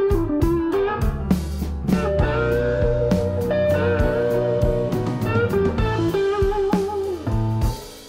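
Background blues music: an electric guitar lead with sustained, bending notes over a bass line.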